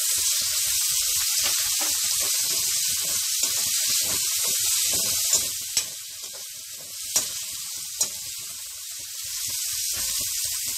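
Chopped onions sizzling in hot oil as they fry, stirred with a spatula that clicks against the pan a few times about halfway through. The sizzle eases a little in the middle and picks up again near the end.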